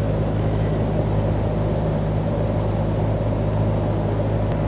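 A steady low mechanical hum at one constant pitch, unchanging throughout, with no handling noises standing out above it.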